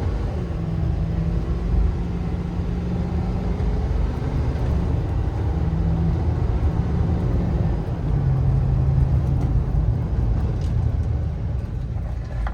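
The 6.7-litre Power Stroke V8 turbo-diesel of a Ford F-550 pulling the truck along through its gears, with road rumble; the engine note steps in pitch several times as it shifts.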